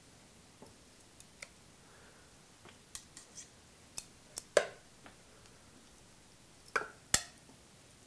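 Metal kitchen tongs clicking and seared chunks of beef being set down into a slow cooker crock: scattered light clicks and taps, with louder knocks about four and a half and seven seconds in.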